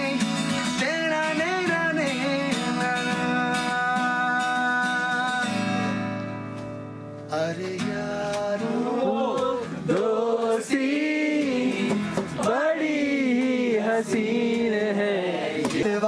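A man singing along to his own acoustic guitar strumming. A long held note fades about five to seven seconds in, then the guitar and voice come back in sharply.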